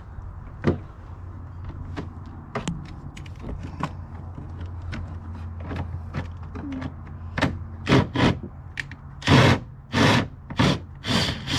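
Plastic radiator fan shroud pieces being handled and fitted in an engine bay: scattered clicks and light knocks, then a run of louder plastic scrapes and knocks in the last few seconds as the parts are pushed into place and fail to line up.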